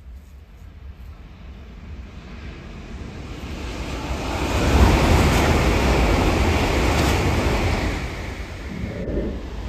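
Shinkansen bullet train passing at high speed close below, a rushing roar of wind and running noise. It builds over a few seconds to a loud peak about five seconds in, holds, then eases near the end.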